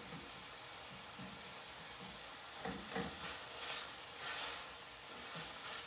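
Ground lamb sizzling faintly as it browns in a stainless steel pan. A spoon stirs and breaks up the meat, with a run of short scrapes and knocks against the pan from about halfway through.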